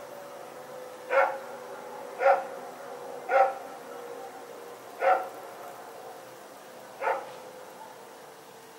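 A dog barking five single barks, spaced one to two seconds apart, over a faint steady hum.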